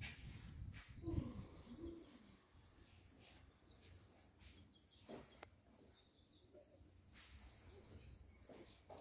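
Near silence: faint outdoor ambience. A brief faint wavering call comes about a second in, and a few faint clicks come around the middle.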